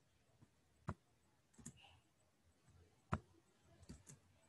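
About half a dozen faint, sharp computer mouse clicks at irregular spacing against near silence, the loudest about three seconds in.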